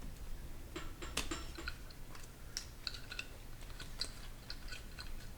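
Light, irregular metallic clicks and clinks of hand tools and small parts on a 4L60E automatic transmission being disassembled, with a sharper ringing clink about a second in.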